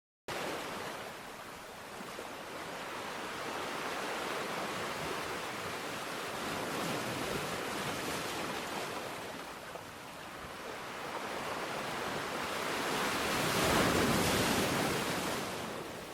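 Ocean surf with waves washing in. The wash swells slowly, dips about two-thirds of the way through, then builds to its loudest surge near the end and fades.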